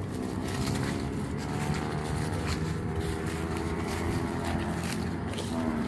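An engine running steadily at a constant speed, with an even hum and no change in pitch.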